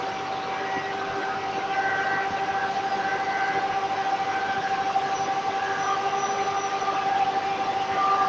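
Circular saw running with a steady whine from the spinning blade, over the noise of other woodworking machinery.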